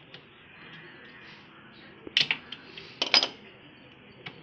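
Two sharp metal-on-metal clanks, about two and three seconds in, with a few faint clicks around them: the steel brake drum and hand tools knocking against the wheel hub as the drum is worked on over new brake shoes of an auto-rickshaw's rear wheel.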